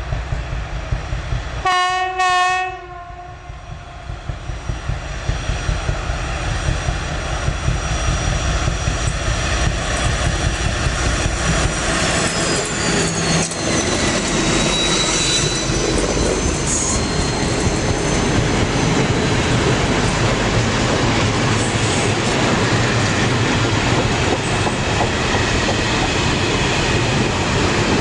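SU46 diesel locomotive sounding two short horn blasts about two seconds in, then its engine growing louder as it approaches and passes, with a falling whine near the middle. The rumble and clickety-clack of a long freight train of loaded flat wagons follows on the rails.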